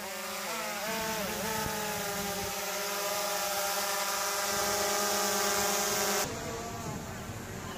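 Quadcopter drone hovering overhead, its propellers buzzing with a whine that wavers in pitch for the first couple of seconds, then holds steady. It cuts off abruptly a little over six seconds in, leaving a fainter background noise.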